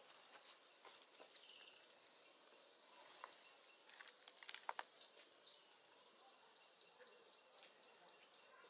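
Near silence: faint outdoor background with scattered soft clicks and rustles, a small cluster of sharper clicks about four to five seconds in, and a brief faint chirp about a second in.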